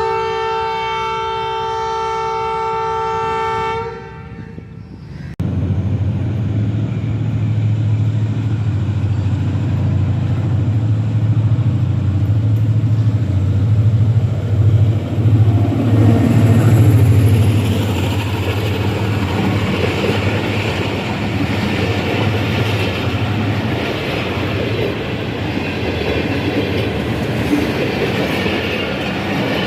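ZCU-30 diesel-electric locomotive's horn sounding its starting whistle, one loud chord held for about four seconds and then stopping. A few seconds in, the locomotive's diesel engine comes in suddenly with a steady low drone as the train departs, and the rumble and clatter of the train rolling past grow in the second half.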